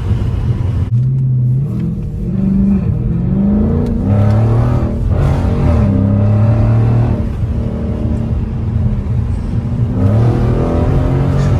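A 2020 Dodge Scat Pack's 392 HEMI V8 with its mid mufflers deleted, revving under acceleration. Its pitch climbs and falls several times, rising again near the end.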